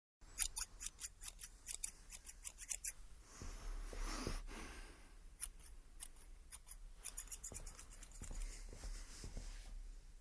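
Quick runs of crisp, sharp snipping clicks close to the microphone, with a softer rustle around the middle.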